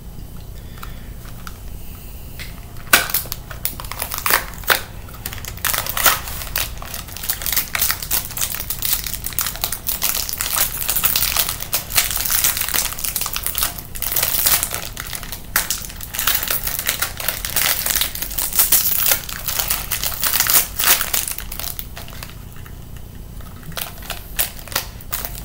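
Crinkling of a Pocky snack's inner foil wrapper being torn open and handled: a dense run of irregular rustles and crackles starting about three seconds in and easing off a few seconds before the end.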